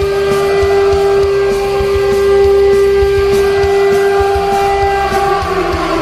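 Ice hockey goal horn sounding one long steady blast, with music underneath. Near the end its pitch sags and falls as it winds down.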